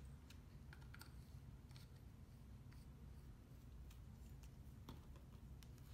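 Near silence: low room hum with a few faint, scattered clicks from a small plastic acrylic paint bottle being handled at the palette.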